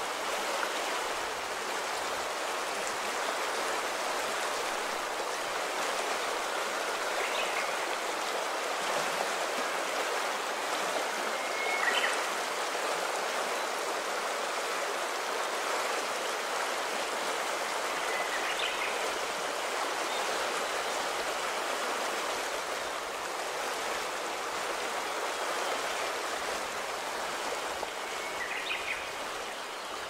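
Azusa River mountain stream rushing steadily over its stony bed.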